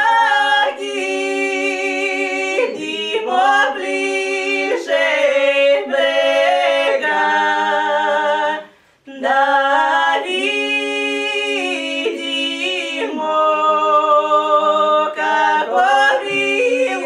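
Three women singing a Balkan-style folk song a cappella in close harmony, with long held notes. They break off briefly for a breath about halfway through, then carry on.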